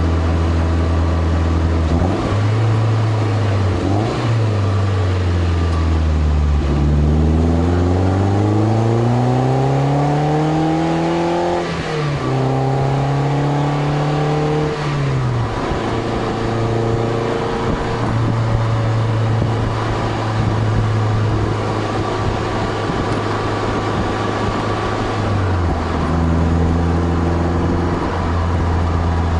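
2003 Toyota MR2 Spyder's 1.8-litre four-cylinder through a Powerhouse Amuse titanium cat-back exhaust, heard close to the tailpipe while driving. The note falls, then climbs steadily under acceleration and drops at a gear change about twelve seconds in, before settling to a steady deep tone at cruise, with tyre and road noise underneath.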